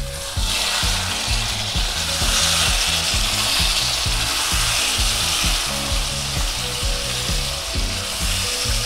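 Chicken in a thick masala gravy sizzling in an open wok, stirred with a spatula as the liquid cooks off and the gravy reduces.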